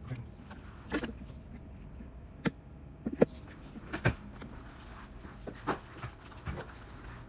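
Irregular sharp knocks and clicks, about eight in all, from handling a flat mop with a metal handle and stepping on a hard vinyl-plank floor, over a steady low hum.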